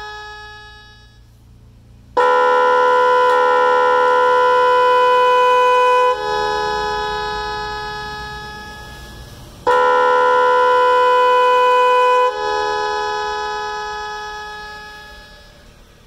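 A 12 V 'Magic 22 sound' electronic motorcycle horn sounds twice, powered from a bench supply. The first blast is a steady blaring tone of about four seconds that shifts pitch slightly once. A shorter blast of about two and a half seconds follows. After each blast the sound fades out gradually over a few seconds.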